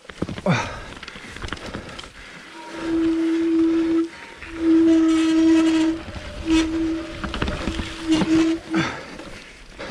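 Mountain bike disc brakes howling: four long steady tones at one pitch, each lasting about a second or more, as the brakes are dragged on a descent, over the rattle of the bike on the trail.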